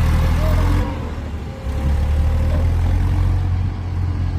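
Heavy vehicle engine running under load, a loud low drone that eases off about a second in and picks up again a moment later.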